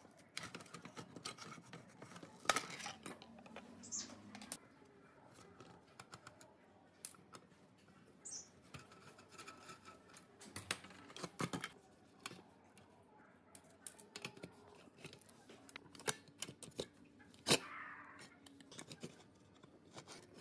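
Hand tools working on the rusty sheet-steel body of an old spring dial scale as it is taken apart: irregular metal clicks, scrapes and knocks. There are two short high squeaks, one about four seconds in and one about eight seconds in.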